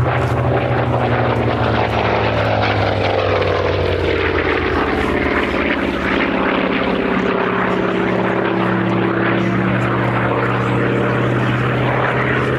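Hawker Fury FB.II's Bristol Centaurus radial engine and propeller, loud in a display pass. The engine note falls in pitch over the first few seconds as the aircraft goes by, then holds steady.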